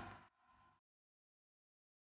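Silence: the sound track drops out completely after the last trace of speech fades.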